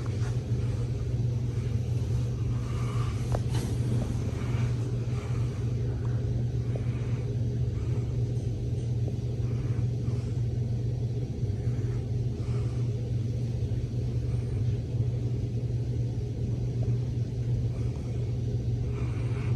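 Hunter Low Profile III ceiling fan running, with a steady low hum.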